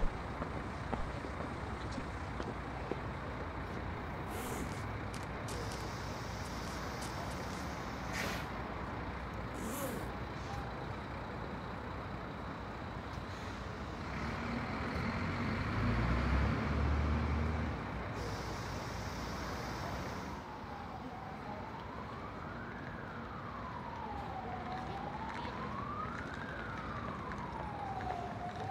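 Steady city street traffic noise, with a heavy vehicle passing with a low rumble about halfway through. From about two-thirds of the way in, an emergency-vehicle siren wails, sweeping slowly up and down in pitch.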